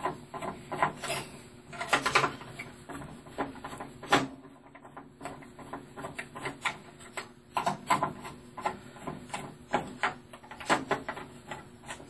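Screwdriver and hands working on parts inside a desktop computer's metal case: scattered, irregular clicks, taps and scrapes of metal and plastic, the loudest knock about four seconds in.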